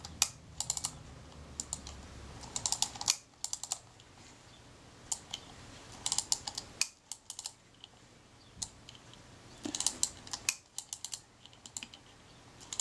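Irregular groups of small, sharp metal clicks from the Kodak Retina IIa's top-plate mechanism as the film-advance wheel and shutter release are worked by hand.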